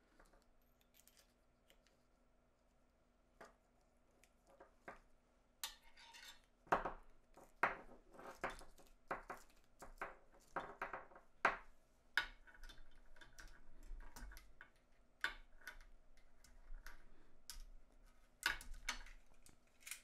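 Small clicks and knocks of plastic and metal connector parts being handled as the shell of a Neutrik 1/4" TS plug is screwed onto its body and the finished adapter cable is put down. The handling is sparse at first and turns into a busy run of sharp clicks from about six seconds in.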